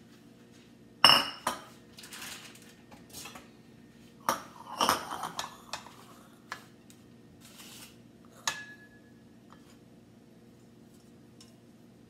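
Round perforated metal pizza pan and dishes being handled, clattering: a sharp ringing clank about a second in, a run of clatter around four to five seconds in, and a last clink with a short ring at about eight and a half seconds.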